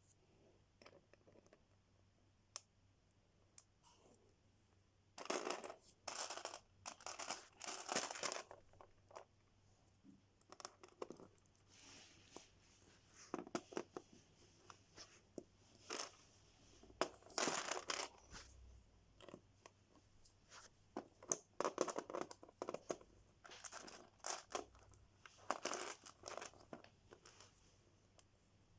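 Lego set packaging being opened and handled: plastic bags and cardboard crinkling and tearing in irregular bursts, with small clicks between.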